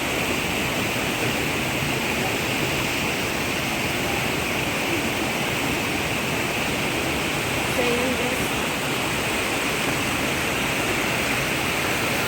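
Waterfall rushing steadily, a dense even wash of water noise.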